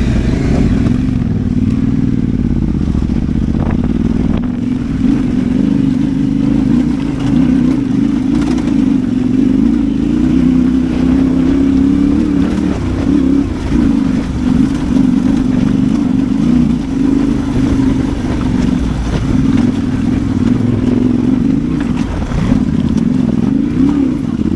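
Yamaha Ténéré 700 World Raid's parallel-twin engine running continuously under way off-road, its revs rising and falling.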